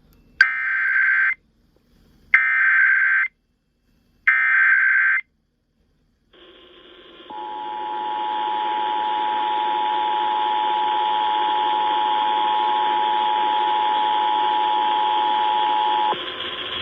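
Emergency Alert System SAME header: three short bursts of screechy digital data tones, each about a second long. Then the broadcast EAS two-tone attention signal holds steady for about nine seconds over radio hiss. Together they open an alert, here a severe thunderstorm warning.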